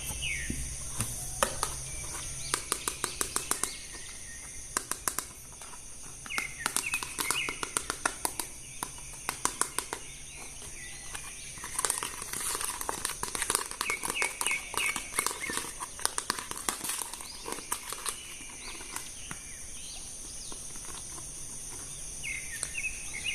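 Plastic toy packaging and an action figure being handled: many quick clicks and crinkles in clusters, with birds chirping a few times in the background.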